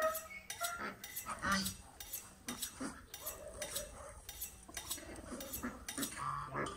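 Light, irregular clinks and taps of a handheld plate, about two a second, as feed is scattered from it for poultry.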